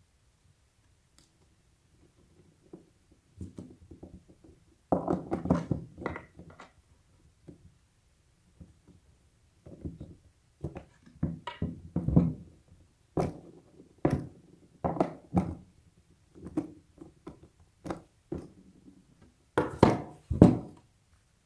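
Intermittent knocks, clicks and rustling as skateboard parts are handled: a wheel is fitted onto the truck axle and small hardware and a skate tool are picked up and set down, with two louder knocks near the end.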